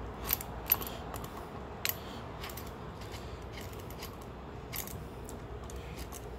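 Vise-grip locking pliers clinking and scraping against the steel ring and bearing inside a Rolls-Royce wheel hub as the ring is gripped and worked loose: a few sharp metallic clicks, the loudest in the first two seconds, then lighter ticks.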